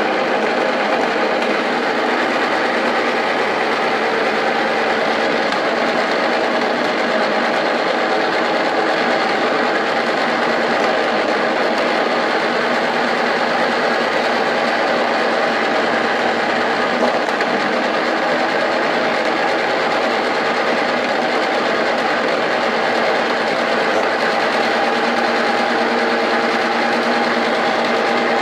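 Bowl-type olive-slitting machine driven by a corded electric drill, running at a steady speed with an even whirring hum, as green olives are fed through it to be slit.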